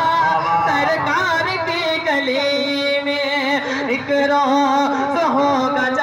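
A man singing an Urdu naat through a microphone and PA, in long ornamented phrases. About halfway through he holds one note for about a second.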